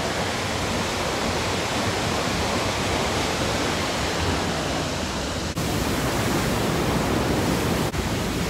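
Steady, loud rush of a large waterfall, an even wash of noise with no pause except two very brief dips, about five and a half and eight seconds in.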